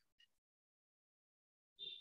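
Near silence, with a few faint ticks of a stylus on a drawing tablet at the very start and a faint breath near the end.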